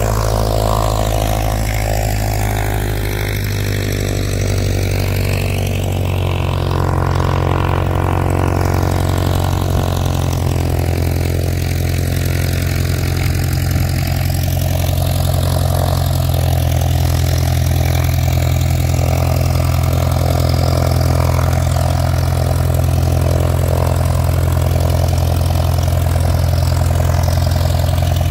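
Cessna 172's piston engine and propeller running steadily on the ground during a maintenance engine check, with an even, unchanging drone.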